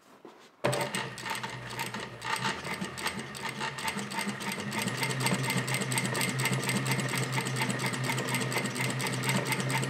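Juki DDL-5550 industrial lockstitch sewing machine on a servo motor, sewing through denim. It starts suddenly about half a second in with rapid, even needle strokes, picks up speed over the next few seconds, then runs steadily.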